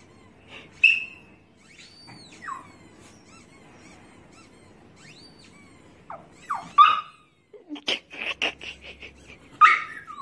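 Small white Chihuahua whining in high-pitched whimpers that rise and fall, then breaking into a few short yips and a quick run of sharp yaps in the second half.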